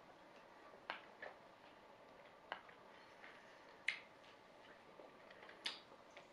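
A metal spoon clicking against a bowl while scooping food: five sharp clicks spread out, the loudest about four seconds in and again near the end.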